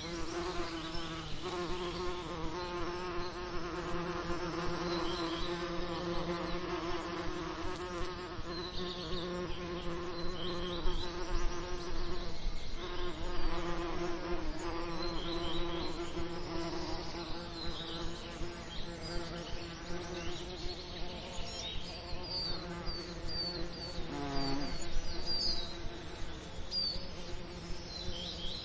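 Honey bees buzzing: a steady hum of many wingbeats, with short high chirps over it in the second half.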